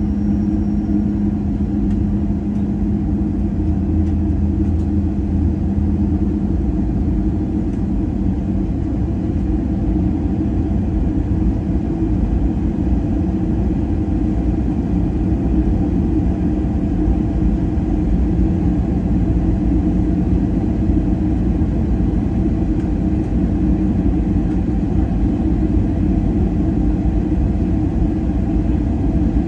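Steady cabin drone of an Airbus A320-family airliner on approach, engines and airflow heard from a window seat. It is a low rumble with a steady hum that drops slightly in pitch about eight seconds in.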